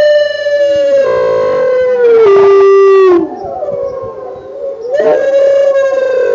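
Wolf-like howls, several overlapping, blasted through powerful loudspeakers: long held notes that slide down in pitch, quieter for a couple of seconds mid-way, then a new howl rising in and holding.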